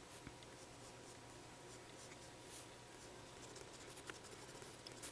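Red Prismacolor Col-Erase colored pencil drawing on mixed-media sketchbook paper: faint, irregular scratching of short pencil strokes.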